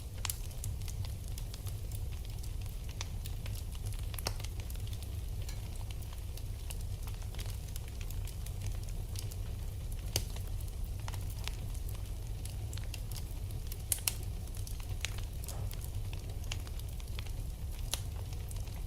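Wood fire burning in a fireplace: a steady low rumble with scattered crackles and pops, including a sharper pair of pops about two-thirds of the way through.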